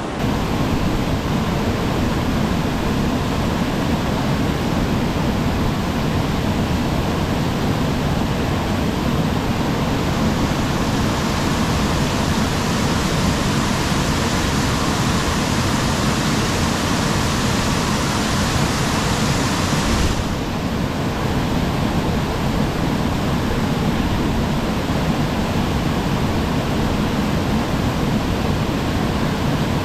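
Waterfall pouring into its plunge pool: a steady, loud rushing of water that turns suddenly duller about two-thirds of the way through.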